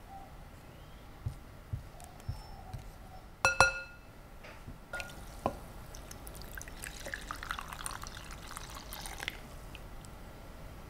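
Glass mixing bowl handled with a silicone spatula: a few soft knocks and one ringing glass clink about three and a half seconds in. In the second half, warm yeast water is poured into a well in the flour, trickling for a few seconds.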